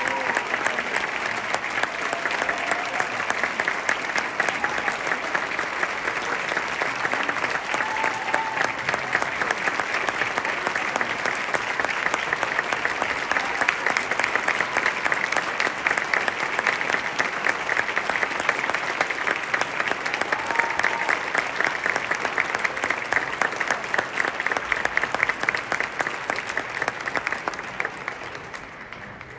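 Large audience applauding steadily, with a few faint shouts among the clapping, then the applause dying away near the end.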